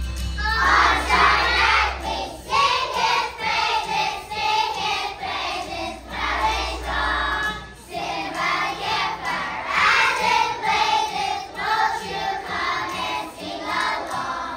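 A group of young children singing a praise song together over a recorded backing track.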